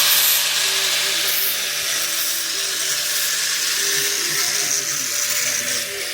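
Small handheld power tool running steadily, a high hiss over a low motor hum, as it works the bamboo of a nose flute.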